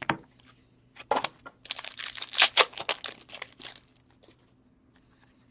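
A foil hockey card pack wrapper being torn open and crinkled: a short rip about a second in, then a run of dense crackling that stops a little before four seconds in.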